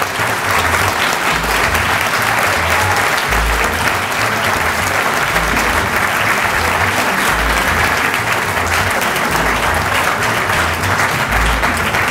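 Audience applauding steadily after a winner is announced.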